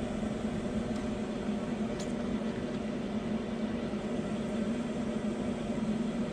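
Steady low background hum from a running appliance or machine in the room, with a couple of light clicks about one and two seconds in.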